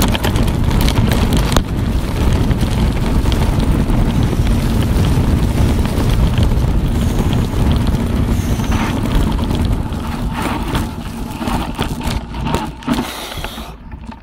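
Mountain bike descending a bumpy grass track: wind buffeting the bike-mounted camera's microphone over a constant clatter of jolts and rattles from the bike. The noise dies down over the last few seconds.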